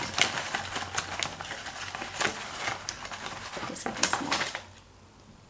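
Packaging being handled and opened by hand: a quick run of small crinkles and clicks that stops about four and a half seconds in.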